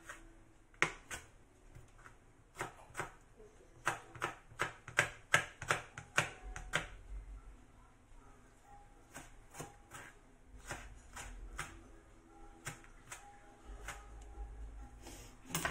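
Kitchen knife chopping red pepper on a plastic cutting board: a quick run of sharp chops through the first seven seconds or so, then slower, scattered chops.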